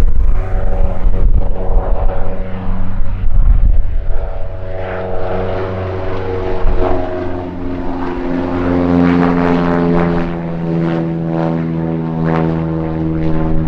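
Cessna 172 Skyhawk's four-cylinder Lycoming O-320 engine and propeller droning, with gusting wind buffeting the microphone during the first few seconds. About halfway through the engine's tone drops and then holds steady.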